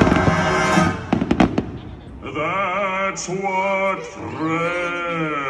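Fireworks show soundtrack: loud orchestral music, then a quick cluster of firework bangs about a second in. The music drops back to a solo voice singing long, wavering notes over soft accompaniment.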